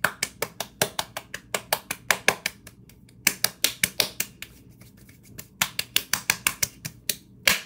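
One person clapping their hands quickly, about five claps a second, in three runs with short pauses near three seconds and near five and a half seconds in.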